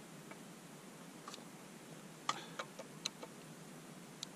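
Scattered light clicks and small metal taps, about seven over a few seconds, as the screw holding an ice auger blade is tightened by hand. The screw turns stiffly, its threads wrapped in polyethylene. A faint steady hiss lies beneath.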